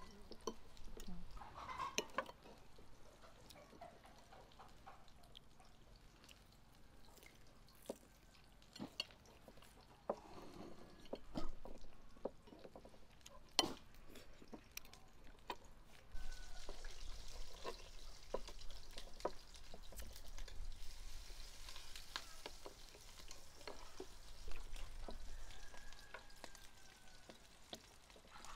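Knives and forks clicking and scraping on plates as people eat, scattered sharp clinks throughout. About halfway through a soft steady hiss joins in underneath.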